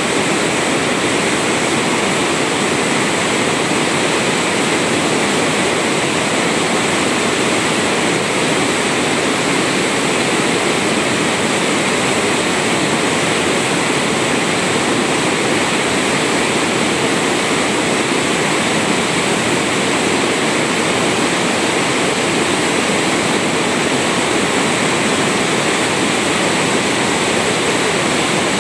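Waterfall water rushing and splashing steadily, an even rush with no break or change.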